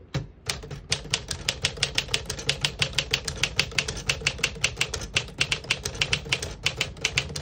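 Keys of a 1957 Smith-Corona Silent-Super portable typewriter striking the paper in a fast, even run of typing, about six strokes a second.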